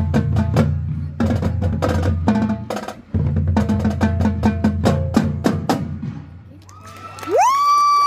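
Marching band percussion playing a fast, rhythmic passage of drum strokes and sharp clicks over deep sustained bass notes. It thins out about six seconds in, and near the end a high tone slides up and holds.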